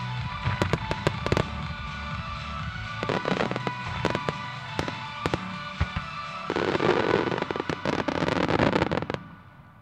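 Aerial fireworks shells bursting in quick succession over music, with many sharp bangs and a dense, rapid run of bursts in the last few seconds. Both the bursts and the music stop about nine seconds in, leaving only faint sound.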